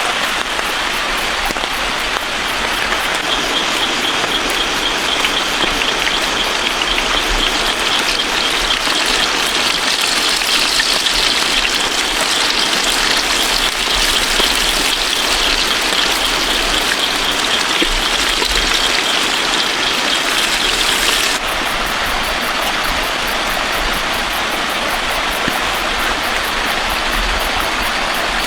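Steady heavy rain falling, an even hiss; about three-quarters of the way through the sound changes abruptly and becomes a little softer.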